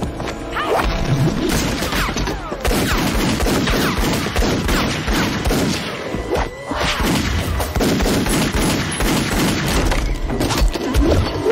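Action-film fight-scene soundtrack: a rapid, irregular string of gunshots mixed with thuds and crashes.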